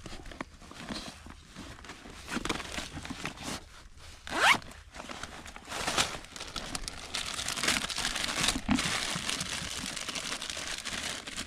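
Handling noises, then a short rising zip about four and a half seconds in, followed from about seven seconds by steady crinkling and rustling of plastic packaging.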